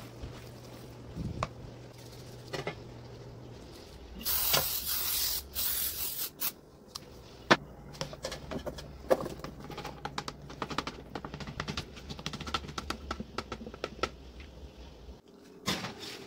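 Aerosol cooking spray hissing onto a metal loaf pan in two spurts, the loudest sound. After it comes a run of small clicks and knocks as cubed raw potatoes are tipped and scraped from a bowl into the pan.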